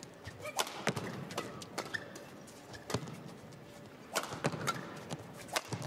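Badminton rally: a series of sharp, irregularly spaced racket hits on the shuttlecock, with short squeaks of shoes on the court mat in between.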